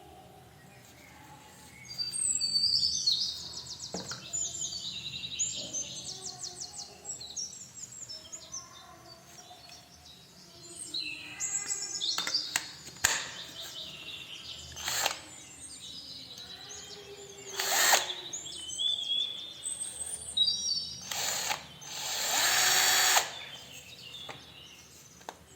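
Makita DF331D 12V cordless drill-driver run in a few short trigger bursts, the longest about a second and a half near the end, among handling clicks and rattles.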